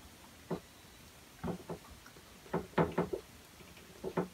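Felt-tip marker writing on a wall-mounted whiteboard: a scattering of short taps and knocks as the strokes of each letter go down, one about half a second in, a pair around a second and a half, a quick run of several near the middle and one more near the end.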